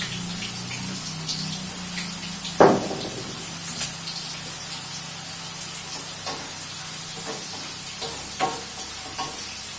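Hot oil sizzling steadily in a frying pan as chicken pieces fry, with scattered light clicks of utensils and one louder clank about two and a half seconds in.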